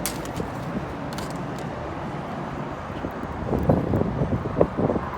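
Wind buffeting the microphone in a steady rush, with louder, uneven gusts from about three and a half seconds in to nearly the end.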